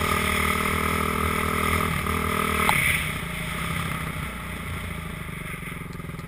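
Dirt bike engine running steadily under throttle, then backing off about two and a half seconds in as the throttle is closed, falling to a lower, quieter run as the bike slows.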